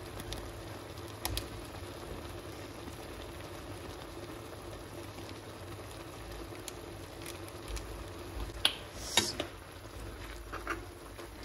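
Ramen noodles simmering in a little broth in a pot, bubbling steadily, with a few sharp clicks near the end.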